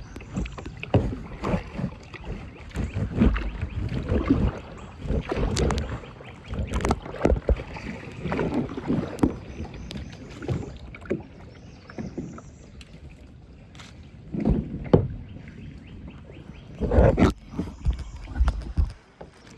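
Kayak paddle strokes splashing in the water, with irregular knocks, busiest in the first half and with two louder splashes near the end.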